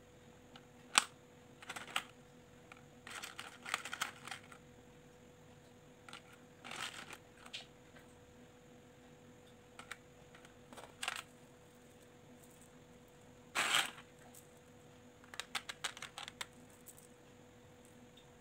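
Small plastic beads clicking and rattling against each other and the plastic tray as they are picked out and threaded onto a string, in scattered irregular clicks. A faint steady hum runs underneath.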